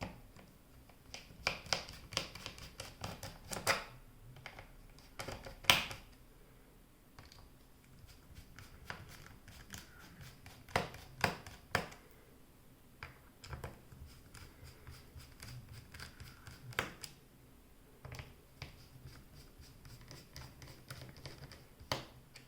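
A screwdriver working the captive screws of a laptop's bottom panel: irregular small clicks and scratches of the bit on the screw heads and plastic case, loudest about six seconds in.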